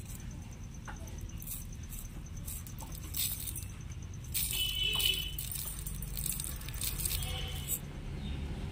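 Cumin seeds poured from a small steel cup into a stainless-steel mixer-grinder jar. The dry seeds rattle and hiss against the metal, starting about four seconds in and lasting a few seconds, with a few faint clinks before.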